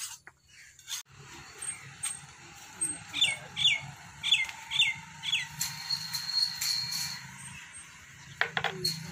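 A bird chirping: a run of five quick, descending chirps a few seconds in, with a high held note after it and two falling calls near the end, over a low steady hum.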